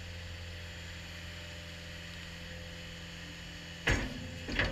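Caterpillar 279D compact track loader's diesel engine running steadily as its loader arms and bucket are worked. Near the end come two sharp knocks, about a second apart, which are the loudest sounds.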